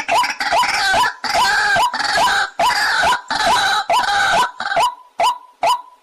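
White-breasted waterhen calling: a fast series of short, hooked notes, about three a second, with harsh croaking calls over them that drop out near the end, leaving only the repeated notes.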